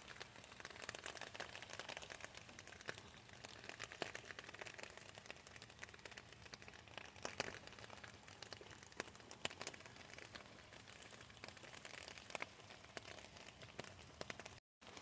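Faint light rain, with scattered raindrops ticking on a nearby surface, and a very brief dropout just before the end.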